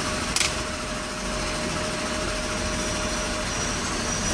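Steady rumble and hiss of road traffic in the background, with a single sharp click about half a second in and a faint steady tone that stops near the end.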